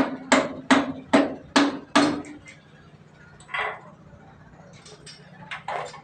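A hammer striking metal six times in quick succession, about two and a half blows a second, each with a brief metallic ring. A few lighter knocks and a short scrape follow.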